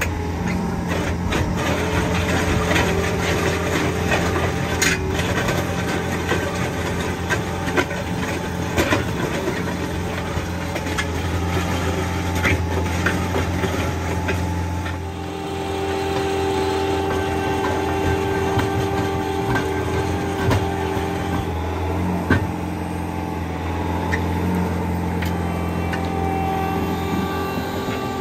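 Bobcat compact track loader's diesel engine running steadily while its hydraulic auger drills a footing hole, with a steady whine that swells for a few seconds past the middle. Scattered knocks come as the auger grinds through soil full of big rocks.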